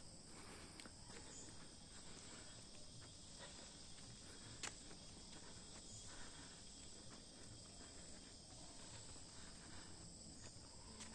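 Faint, steady, high-pitched drone of insects in the trees, with one sharp click a little before halfway through.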